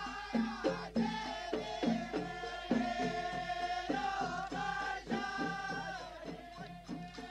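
Background music: a Middle Eastern folk-style song, a singing voice held over a steady drum beat.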